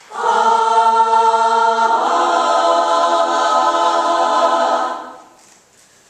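Women's a cappella chorus singing a held chord that moves to a second chord about two seconds in, then releases about five seconds in.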